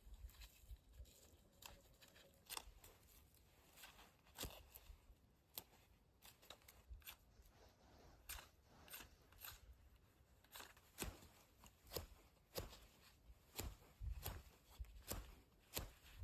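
Faint, scattered clicks and crunches, one every second or so at first and coming more often in the second half.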